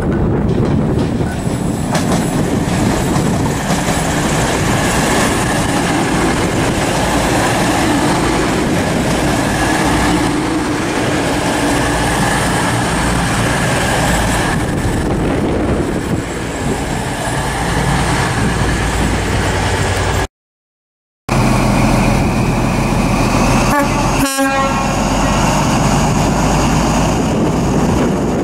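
Diesel passenger train running past with a steady rumble. After the sound drops out for about a second, an East Midlands Trains HST Class 43 power car idles with a steady low engine note, broken once by a brief sharp sound.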